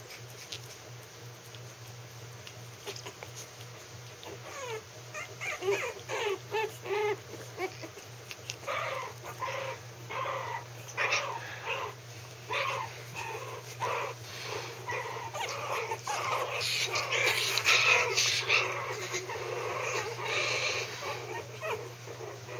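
Three-week-old Maltese puppies whimpering and yipping as they play, many short high calls that begin a few seconds in and come thicker and louder toward the end. A steady low hum runs underneath.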